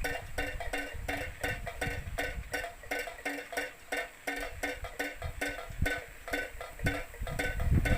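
Homemade PVC-pipe bird-scaring windmill (klencer) spinning in the wind, its beaters knocking the pipe in a fast, even rhythm of hollow pitched clacks, about five a second. Wind rumbles on the microphone underneath.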